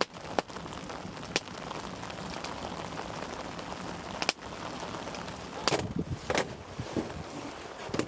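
Wood campfire crackling: a steady hiss with sharp pops every second or so.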